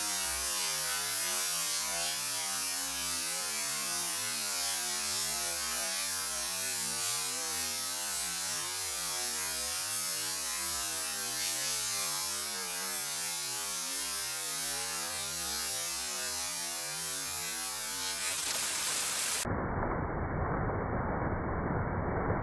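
Steady rushing noise of a waterfall. About nineteen seconds in it cuts abruptly to a duller, muffled rumble.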